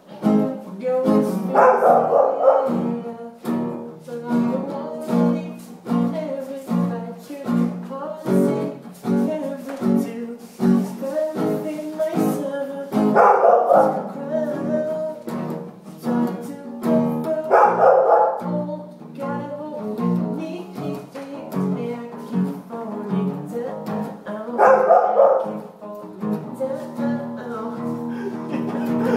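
Music with a steady beat, with a few louder bursts every several seconds.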